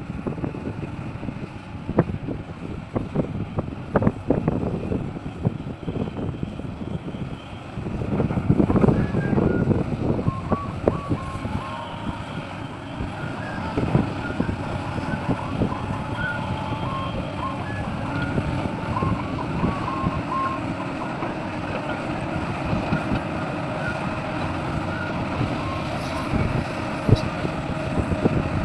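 Heavy diesel earthmoving equipment running, with a string of knocks and clanks through the first ten seconds. Short high-pitched tones come and go in the middle.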